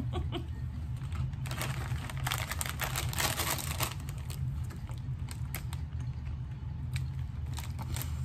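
Crunching of a ridged potato chip being bitten and chewed, densest from about one to four seconds in, then scattered lighter crunches. A steady low hum runs underneath.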